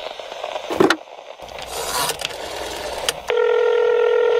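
Clicks and a hiss as a desk telephone's handset is picked up, then a steady, unbroken dial tone from about three seconds in.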